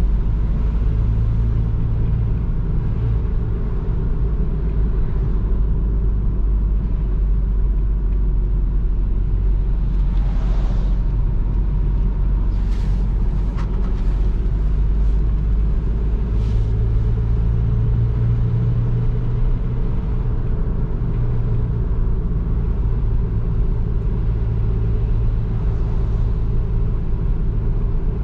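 Nissan NV200's 1.5 dCi four-cylinder diesel engine and road noise during steady driving: a continuous low rumble with an engine hum that fades and returns, and a few faint short swishes near the middle.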